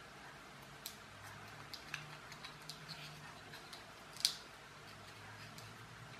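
Faint clicks and taps of fingers handling a small wooden toy train, pushing a knocked-off wheel back onto its axle, with one sharper click about four seconds in.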